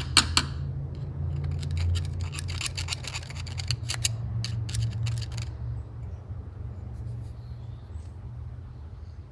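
Quick light clicks and scratches of small carburetor parts being handled and worked on with a tool, dying away about five and a half seconds in, over a steady low hum.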